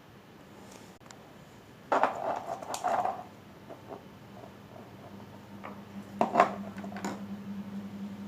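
Small objects being handled, in two clusters of knocks and rattling about two and six seconds in. A steady low hum starts about halfway through.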